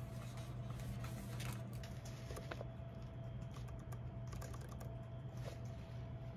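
Typing on a computer keyboard with mouse clicks: light, irregular taps and clicks, over a steady low hum.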